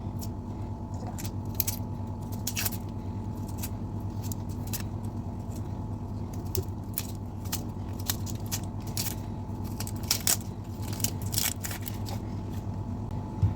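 Kitchen food preparation: scattered sharp clicks and light knocks of handling and cutting over a steady low hum.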